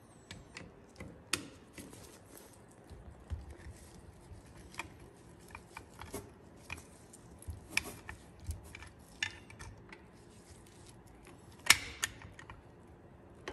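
Screwdriver tips clicking and scraping against a steel drum brake shoe while prying off the clip that holds the parking brake lever. The small metal clicks come at irregular intervals, with one sharper click near the end.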